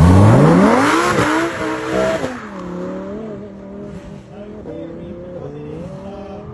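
Supercar launching from a standing start with wheelspin: the engine revs up sharply, shifts up twice within about two seconds, and fades as the car pulls away into the distance.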